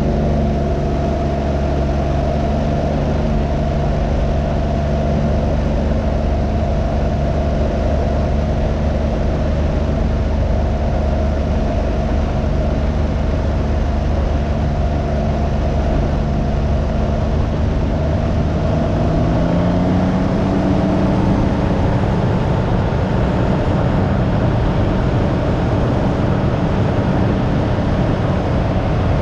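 Can-Am Ryker 900's three-cylinder engine running steadily under way, mixed with wind noise. About two-thirds of the way through the engine note rises as the trike speeds up, and the rush of wind grows louder.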